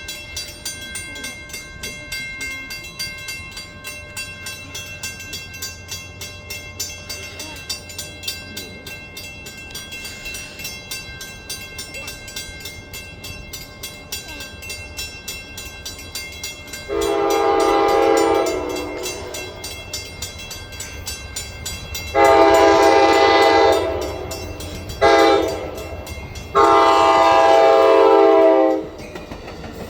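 Train horn sounding the grade-crossing signal, long, long, short, long, as a train approaches a crossing. Underneath runs a steady, rapid, even ticking.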